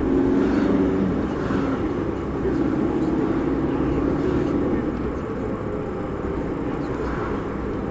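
Car engine and tyre noise heard from inside the cabin as the car speeds up in city traffic; a steady hum that eases off a little about five seconds in.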